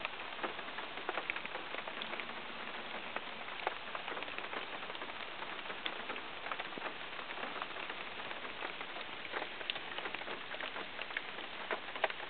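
Rain falling during a thunderstorm: a steady hiss broken by irregular sharp ticks of single drops striking close by, a few a second. No thunder is heard.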